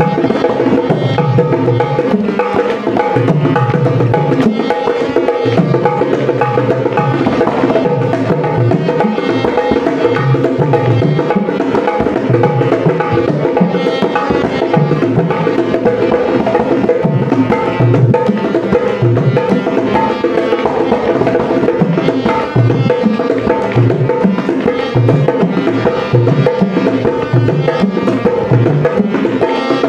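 A dholki, the two-headed rope-tuned barrel drum, played by hand in a fast, continuous rhythm, its deep bass strokes under melodic backing music with sustained tones.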